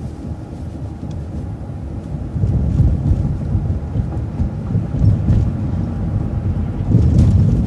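Low rumble of a city transit bus on the move, heard from inside the bus, swelling louder about two seconds in and again near the end.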